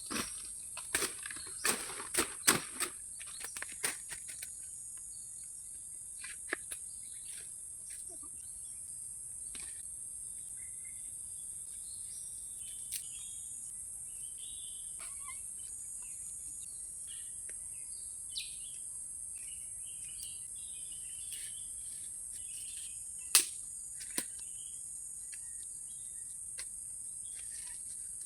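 Steady high-pitched insect drone, with sharp clicks and crackles in the first few seconds, scattered short chirps, and two loud clicks a little over 23 seconds in.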